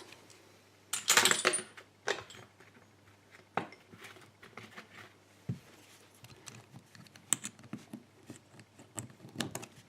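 Small metal clicks and clinks from a euro-cylinder lock and tools being handled while the plug's retaining spring clip is worked off, with a louder scraping rustle about a second in.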